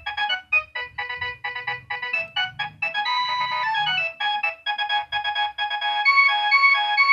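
Nokia 6100 mobile phone ringtone: a quick melody of short electronic notes. About four and a half seconds in it gives way to a different, steadier repeating tune.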